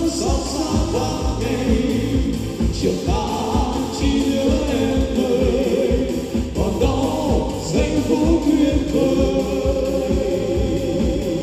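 Instrumental outro of a Vietnamese pop ballad with a steady beat and sustained melody, possibly carrying backing vocals.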